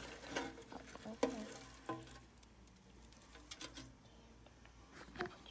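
Dry moss rustling and crackling as it is pushed around by hand in a clear plastic tub, with a few sharp taps against the plastic, most of them in the first two seconds and fainter after.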